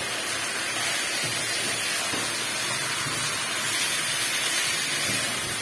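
Mutton chops with garlic and ginger paste sizzling steadily in hot oil in a nonstick wok while being browned (bhuna).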